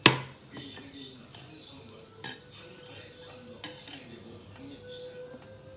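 A ceramic plate set down with a sharp clatter on a glass-topped table, then light clicks of chopsticks against the plate as pieces of fried chicken are moved about.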